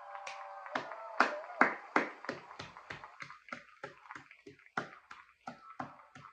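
One person clapping hands, about three claps a second.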